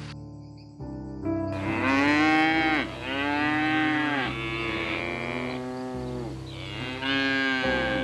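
Cattle mooing: about four long moos in succession, starting a second and a half in, over soft background music.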